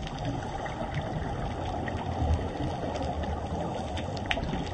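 Underwater ambience on a coral reef: a steady low rumble with scattered faint clicks, swelling briefly about two seconds in.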